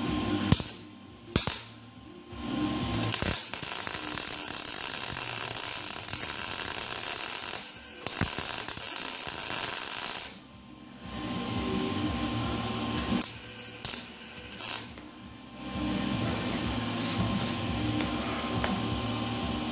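Electric welding arc crackling as a nut is welded onto a broken exhaust header stud: two short bursts, a long bead of about seven seconds, then a cluster of short bursts, over a steady hum.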